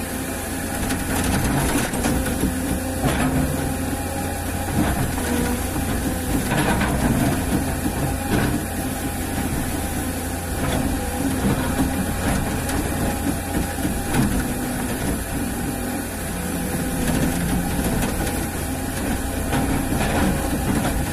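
Volvo excavator's diesel engine running steadily, heard from inside the cab while the boom and bucket are worked from the levers, with a few short knocks in the first half.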